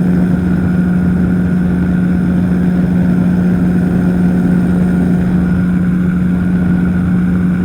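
Powered parachute's engine and propeller running steadily in level cruising flight: a constant drone with one steady hum that holds the same pitch throughout.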